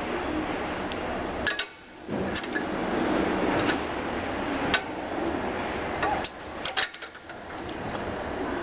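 Occasional light metal clicks and knocks from a curved steel bracket and its bolt being fitted to a motorcycle highway bar and frame with hand tools, over a steady background hiss.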